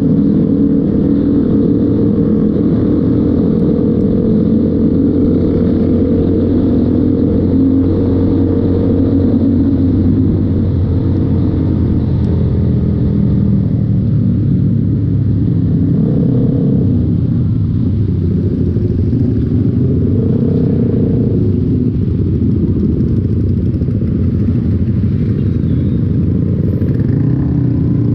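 Motorcycle engine running steadily while riding, mixed with road and wind noise. The engine pitch shifts gently during the first several seconds.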